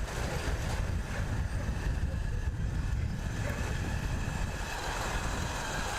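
Motorcycle ride: the Bajaj Pulsar 220's single-cylinder engine running under a steady, dense rumble of wind buffeting the action camera's microphone.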